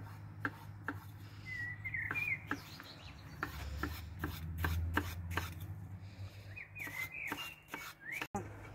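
Kitchen knife chopping a peeled cucumber on a wooden cutting board, a run of irregular cuts knocking through onto the board.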